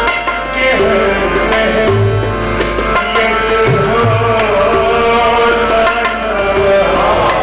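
Harmonium playing held, many-note chords and a melody, with tabla accompaniment that includes deep bass-drum strokes.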